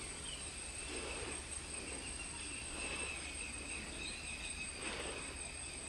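Steady insect chorus in tropical forest: two unbroken high-pitched tones over a faint background hiss.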